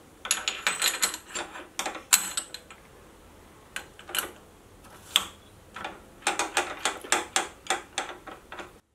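Runs of light metal clicks and taps as the slitting saw arbor is pushed by hand into the milling machine's collet, in a quick cluster near the start, a few single clicks midway, and another cluster near the end.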